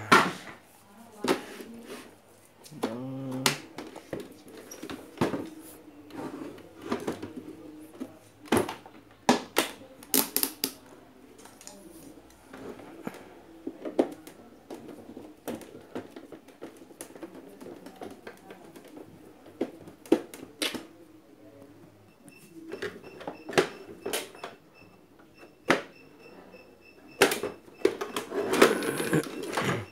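Irregular sharp clicks and knocks of plastic and metal blender parts and tools being handled during disassembly and repair.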